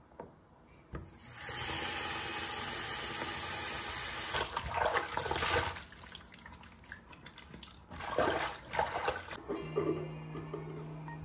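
Bathroom tap running into a basin in a steady hiss, broken twice by louder splashing as water is scooped from the stream and splashed onto the face. A music track comes in near the end.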